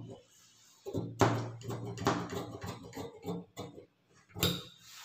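Large tailor's shears cutting through blouse fabric along a marked line: a run of short crunching snips starting about a second in, with the loudest snip near the end.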